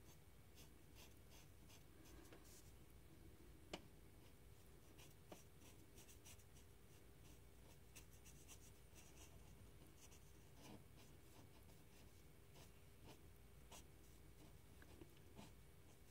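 Faint scratching of a pen tip on paper in short, repeated colouring strokes, with a sharp tap a little under four seconds in.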